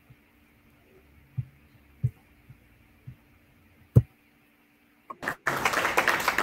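Steady low hum with a few soft low thumps, then a sharp click and a moment of silence. About five and a half seconds in, an audience starts applauding.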